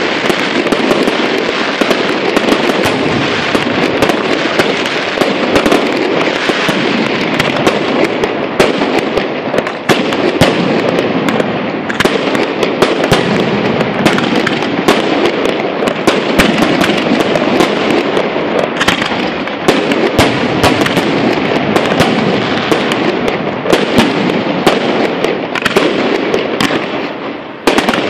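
Aerial fireworks display: a dense, continuous barrage of shells bursting, with rapid bangs over crackling. A brief lull near the end is broken by a sharp bang.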